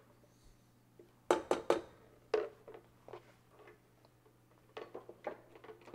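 Kitchen utensils and containers being handled and set down: a few light knocks and clicks, a cluster of them about a second and a half in, over a faint steady hum.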